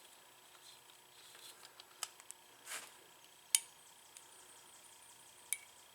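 Faint metallic clicks and clinks of a C-clamp being worked against a motorcycle's front brake caliper, spreading the new pads apart to make room for the brake disc. Three sharper clicks come a second and a half to two seconds apart, with a short scrape between the first two.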